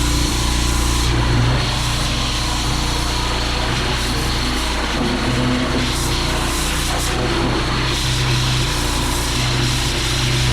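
Pressure washer's small engine running steadily under load, with a constant hiss of water spraying from the cleaning wand.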